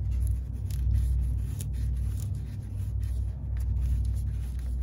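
A steady low rumble with faint light clicks and scrapes as a gloved hand unthreads an oil pan drain bolt, just before the oil runs out.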